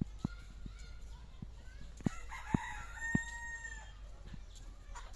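A rooster crows once, starting about two and a half seconds in and ending in a long held note. Sharp slaps of flip-flop sandals on packed dirt sound through it.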